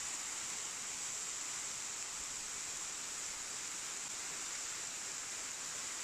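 Waterfall, a thin curtain of water falling and splashing, heard from just behind and under the falling spray: a steady, even hiss strongest in the high treble.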